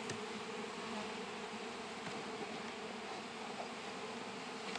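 Many honeybees buzzing around an opened hive, a steady hum.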